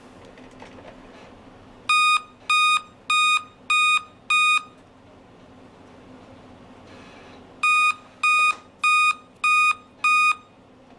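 Dell laptop's system beeper sounding its five-beep error code at power-on, two rounds of five short even beeps with a pause between. The five-beep code points to a failed CMOS battery.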